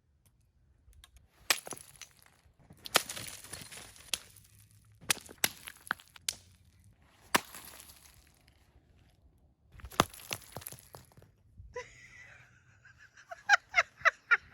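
Icicles smashing: a string of sharp cracks and crashes of breaking ice, some with a brief spray of fragments after, coming irregularly over about ten seconds.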